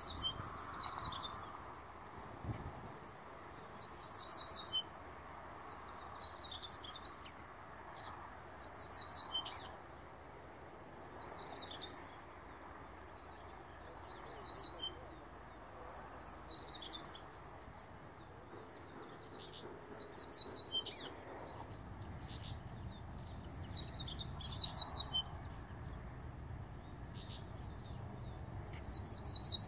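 Caged double-collared seedeater (coleiro) singing: short, high-pitched song phrases of about a second each, repeated every two to three seconds.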